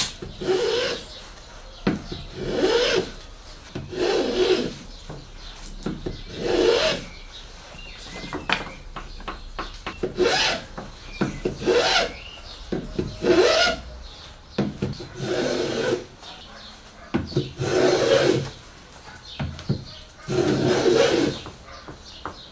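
Small block plane shaving the edge of a small piece of wood by hand: rasping strokes, each under a second, coming roughly every one to two seconds.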